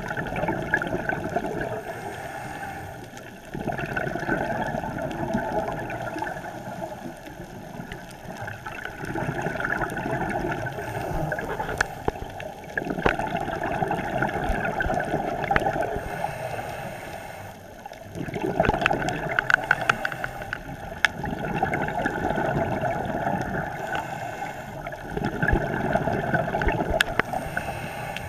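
A scuba diver breathing through a regulator underwater, each exhale a rush of bubbles that swells and dies away every three to five seconds.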